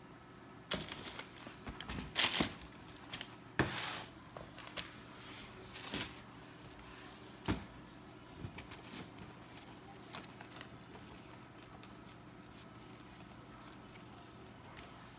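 Handling noise from sneakers and their packaging: a run of short rustles, taps and knocks for the first several seconds, then only a few faint clicks.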